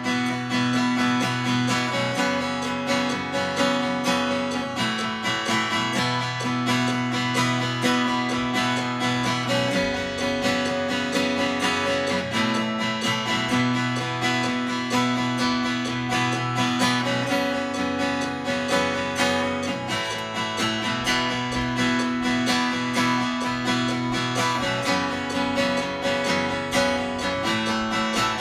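Instrumental break of a band's song: strummed acoustic guitar with a steady beat, the chords changing every couple of seconds.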